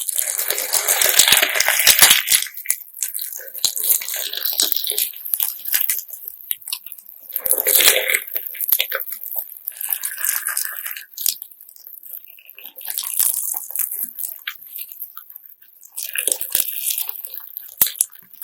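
Homemade slime mixed with glass sand, squeezed and pressed by hand, giving gritty crunching crackles in repeated bouts every two to three seconds.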